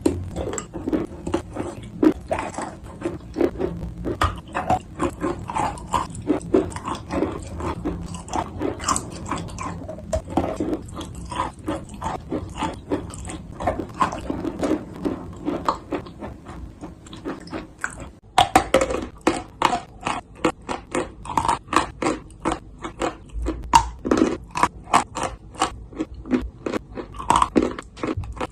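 A person chewing dry, crunchy clay with quick, repeated crisp crunches between the teeth, broken by a short pause about two-thirds of the way through.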